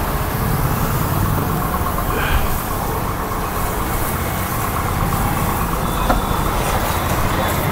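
Steady motor-vehicle engine rumble with road traffic noise.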